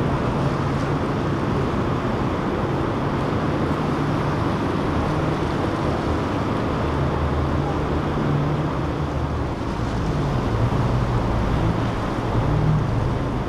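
Inboard engines of a passing powerboat or motor yacht, a low steady drone that wavers in pitch and grows stronger in the second half, over the wash of waves and wind buffeting the microphone.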